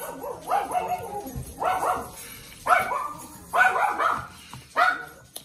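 Dog barking repeatedly, about once a second, in short loud barks.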